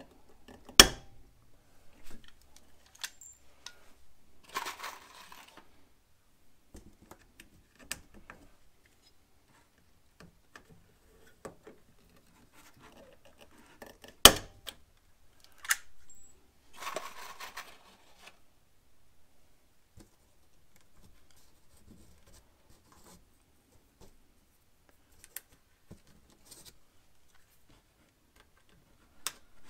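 Hand pop-rivet tool setting aluminum rivets in a radiator cowl panel: sharp metallic snaps as the mandrels break, the two loudest about a second in and about 14 seconds in. Lighter clicks and brief rattles of the tool and parts come in between.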